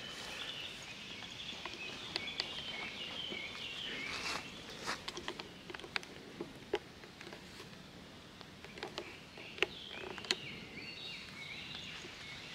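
Songbirds singing in woodland: short warbling phrases, clearest near the start and again toward the end, over a steady outdoor hiss. Scattered footsteps and small clicks on the forest trail through the middle.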